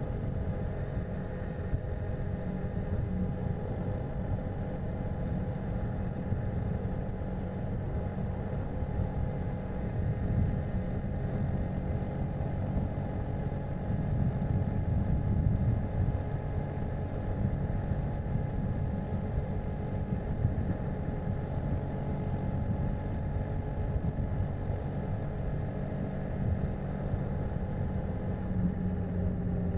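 Honda Monkey's single-cylinder engine running steadily at cruising speed, with a low rumble of road noise under it.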